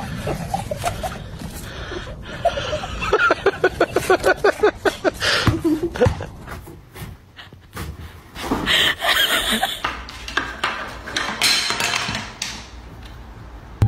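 A person laughing hard in a fast run of 'ha-ha' bursts, with more loud noisy outbursts later on.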